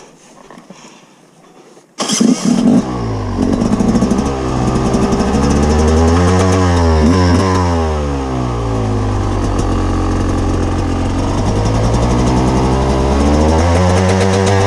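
Two-stroke enduro dirt bike engine cutting in suddenly about two seconds in, then running hard and revving up and down over and over as the throttle is worked.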